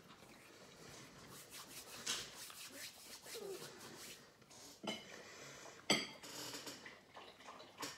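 Close-up chewing and mouth sounds of a man eating a calzone, with hands rubbing together and a few short sharp clicks, the loudest about six seconds in.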